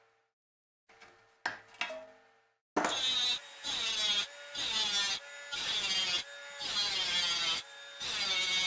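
Hand tool working wood in rhythmic back-and-forth strokes, a little over one a second, starting about three seconds in. Before that come a couple of short knocks that ring on briefly.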